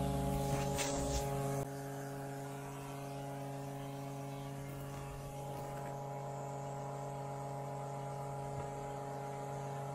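Small electric oil extractor pump, battery-powered, running with a steady buzzing hum as it sucks engine oil out of the engine into a canister. It gets slightly quieter about a second and a half in.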